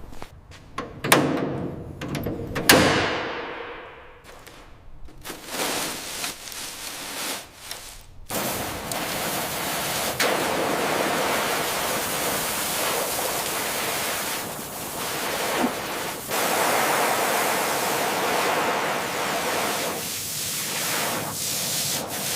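A few sharp knocks and thuds, then from about eight seconds in a steady hiss of spraying water.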